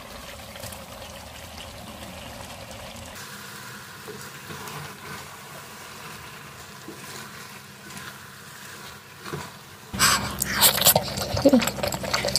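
Soup simmering softly in a pot, then a wooden spoon stirring leafy vegetable soup with a few light scrapes and clicks. About ten seconds in it changes abruptly to much louder close-up eating: wet chewing and mouth clicks as garri fufu and vegetable soup are eaten.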